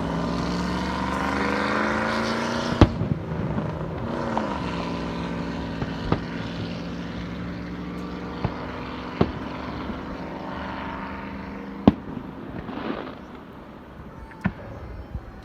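A motorboat engine running, its pitch rising over the first few seconds, dipping, then holding steady. About six sharp firework bangs cut through it, the loudest about three seconds in.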